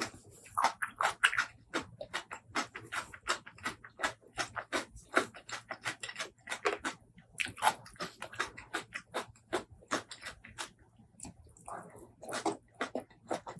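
Close-miked mouth sounds of a person eating: rapid, irregular wet chewing clicks and smacks, several a second, with a few longer bursts.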